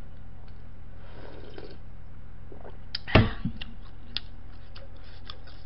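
Soft sip from a stainless steel bowl about a second in, then a single sharp knock about three seconds in as the bowl is set down on the table, followed by small scattered mouth clicks of chewing over a steady low electrical hum.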